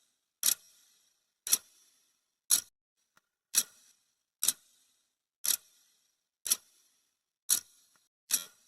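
Clock ticking sound effect: one sharp tick each second, each with a short fading tail, counting down a timer.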